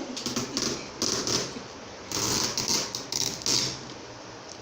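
Adhesive tape being pulled off the roll and pressed onto cardboard, in four short noisy bursts of about half a second each with quieter gaps between.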